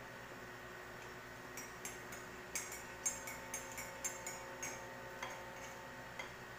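A metal teaspoon clinking against the inside of a ceramic mug as a drink is stirred: a quick run of light chinks, about three or four a second, then two single taps near the end.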